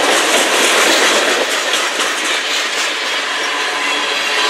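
Freight cars of a manifest train, boxcars then tank cars, rolling past close by: a steady, loud clatter of steel wheels on the rails.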